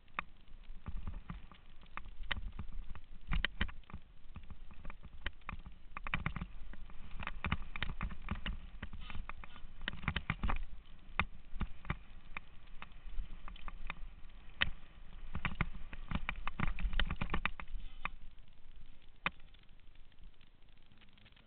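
Mountain bike rattling down a rough dirt trail, heard from a camera on its handlebars: a run of sharp clicks and knocks from the bike over a low rumble of tyre noise and wind on the microphone, dying down near the end as the bike stops.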